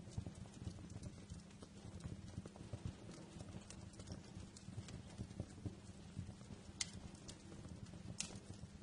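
Fireplace fire crackling: a low, flickering rumble of burning with scattered small snaps, and two sharper pops near the end.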